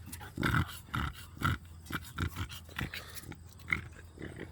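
Six-week-old pit bull puppies making short, irregular grunting and snuffling noises, about half a dozen in a few seconds.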